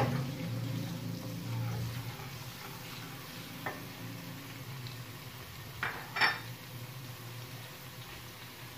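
Garlic paste sizzling in oil in a metal karahi while a wooden spatula stirs and scrapes it. The spatula knocks on the pan a few times, loudest about six seconds in.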